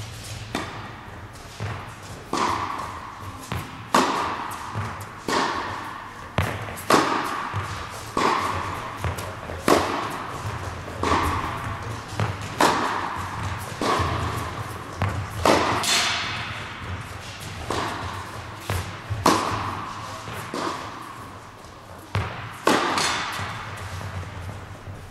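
Tennis ball struck with a racket over and over in a rally, a sharp hit about every second and a half. Each hit rings out in the echo of an indoor tennis hall.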